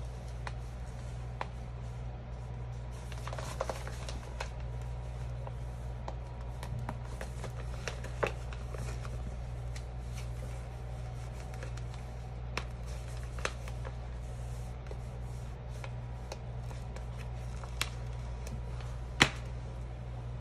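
Planner supplies being rummaged through and handled by hand: rustling with scattered light clicks and taps, and one sharper click near the end, over a steady low hum.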